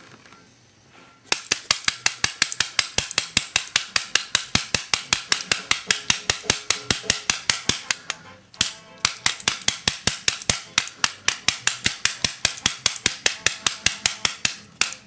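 A bump key being struck again and again in a Mul-T-Lock Garrison thumb-turn cylinder, with dampeners fitted to the key: fast, sharp metallic taps, about five a second. They start about a second in and break off briefly a little past the middle.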